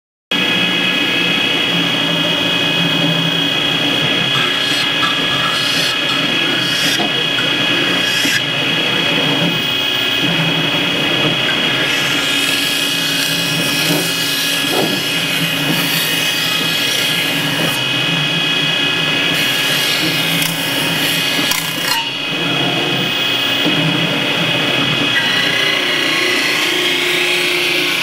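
CNC metal spinning lathe running, with a steady high-pitched whine under a rubbing noise that varies in strength.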